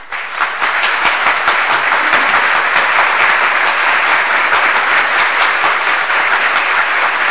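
A crowd applauding: dense, steady clapping that builds up within the first half second and then holds.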